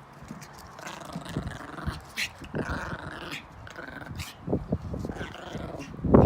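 Dogs growling in rough play, low irregular rumbles broken by scattered clicks and scuffles.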